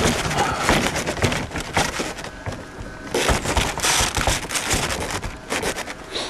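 Crunching of packed snow underfoot: dense, irregular crackling, loudest a little past halfway.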